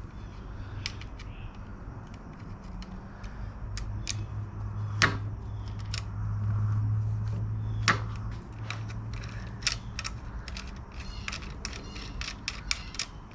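Hands fitting a new clutch cable on a Honda 300EX ATV: scattered light clicks and taps of cable and metal parts, two sharper clicks about five and eight seconds in, and a quicker run of ticks near the end, over a steady low hum.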